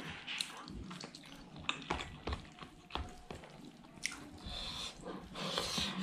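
Close-miked eating sounds: wet chewing and mouth smacking, with fingers working through curry-soaked rice and scattered small clicks.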